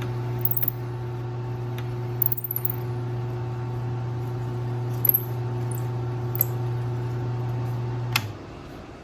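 Electric motor of a shop power tool running with a steady hum, with a few short high ticks over it. It is switched off about eight seconds in and the hum stops.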